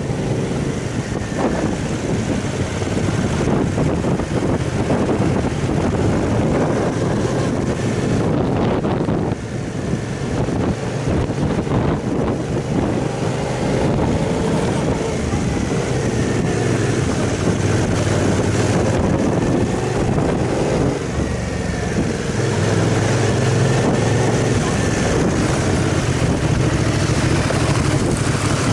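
Aprilia Caponord 1200 motorcycle's V-twin engine running at low road speed, heard from the bike, its note rising and falling with the throttle, under steady wind rush on the microphone. It gets louder about two-thirds of the way through.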